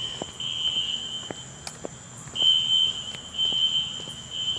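Building fire alarm sounding after a manual pull station was pulled: a high steady beep of about a second, repeated in groups of three with a short pause between groups.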